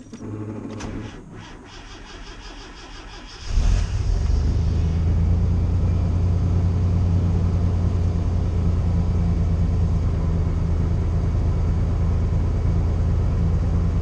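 A 1992 Chevy K1500's 4.3-litre V6 with throttle-body injection catches about three and a half seconds in and settles into a steady idle, its exhaust a little loud through a Cherry Bomb muffler. A few faint clicks come before it starts.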